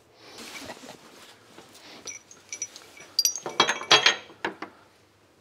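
Loose steel suspension bolts clinking and rattling against each other as they are picked through by hand, after a soft rustle at the start; the loudest burst of sharp, ringing metallic clinks comes about three and a half to four seconds in.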